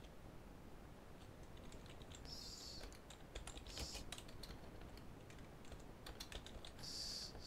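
Faint computer-keyboard typing: scattered key clicks as a short terminal command is typed and corrected. Two brief soft hissy rustles come about two and a half seconds in and near the end.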